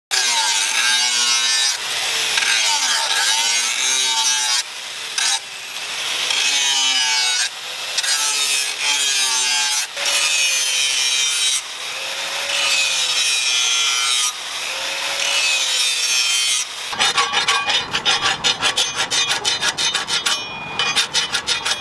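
Electric angle grinder grinding a steel sword blade, a loud hiss with its pitch wavering as the disc bites, broken off and restarted several times. Near the end this gives way to quick repeated strokes of a hand file on the steel blade held in a vise.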